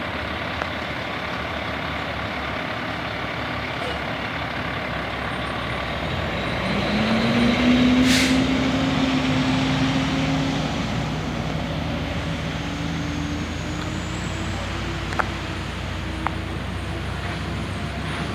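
Fire truck's diesel engine running and then speeding up about six and a half seconds in, its pitch rising and then climbing slowly as the truck pulls away. A short air-brake hiss comes about eight seconds in, at the loudest point.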